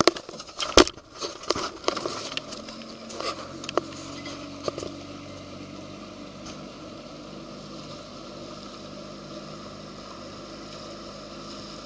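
A few sharp knocks and clatter from handling in the first couple of seconds, then a boat motor running with a steady hum.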